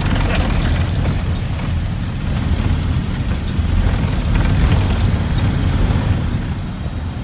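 Steady low rumble of a tracked over-snow vehicle's engine and drivetrain, heard from inside its cab while it drives along a snow-covered track.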